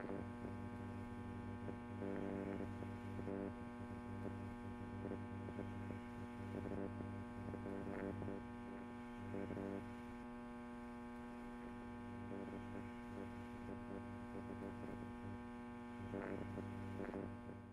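A steady, low electrical hum with many overtones, with faint pulses now and then, cutting off at the very end.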